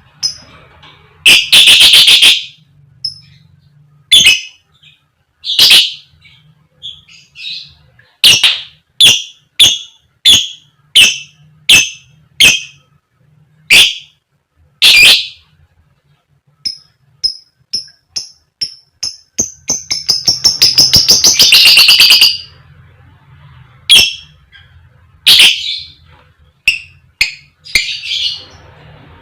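Lovebird giving loud, sharp 'koek koek' calls one after another at irregular intervals. A run of soft, short chirps comes a little past halfway, then a fast rattling series of calls lasting about two seconds.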